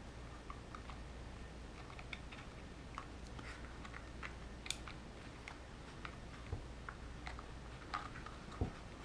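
Small scattered clicks and light rustles of a hard plastic cover and wires being handled and pressed against a plastic RC truck chassis, over a low steady hum.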